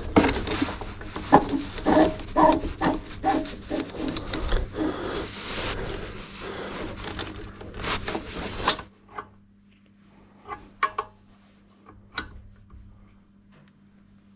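Rubber hydraulic hoses and hard plastic cable wrap being pushed and rubbed by hand through a mini excavator's frame: a dense run of rubbing and small knocks. It stops abruptly about nine seconds in, leaving only a few faint clicks of a spanner at a hose fitting.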